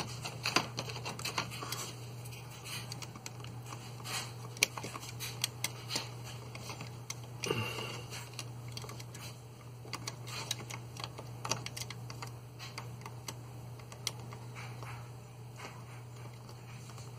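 Irregular small clicks, taps and light scrapes of a hobby knife working along the edge of a plastic model hull, with the plastic parts handled on a cutting mat; one longer sliding scrape comes about seven and a half seconds in. A steady low hum runs underneath.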